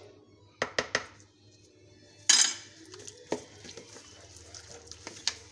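Utensil clinking and scraping against a mixing bowl while chicken is stirred into its yogurt marinade: a few sharp clinks about half a second to a second in, a louder brief scrape a little after two seconds, then scattered light taps.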